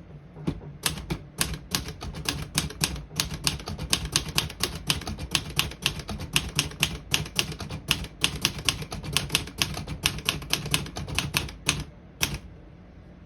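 Olivetti Lettera 32 manual portable typewriter typing a sentence: quick, uneven key strikes, several a second, with the typebars snapping against the platen, stopping about a second before the end.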